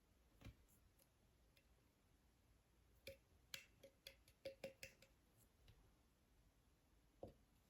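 Near silence with a few faint clicks and light taps, mostly in a quick cluster between three and five seconds in: small plastic glue bottles and a measuring cup being handled.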